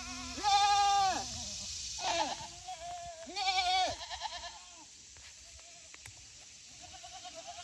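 Goats bleating: three loud, quavering calls in the first four seconds, then a few fainter, shorter ones toward the end.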